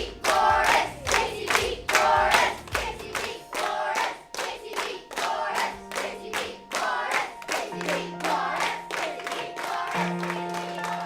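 A class of children chanting together in a rhythmic group shout, with clapping keeping the beat. About a third of the way in, background music with long held notes comes in under the chant, and the chant grows fainter toward the end.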